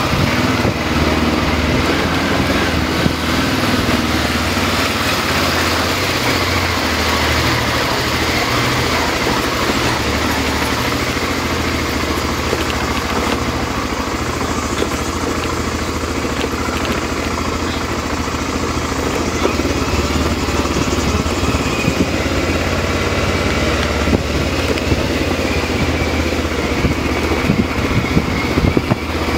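Vehicle engine running steadily while driving along an unpaved gravel road, with wind and road noise.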